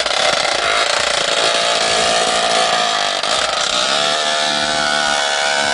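Two-stroke drag motorcycle engine revving high and held, a buzzy, chainsaw-like note; the pitch dips a little past the middle and climbs again near the end.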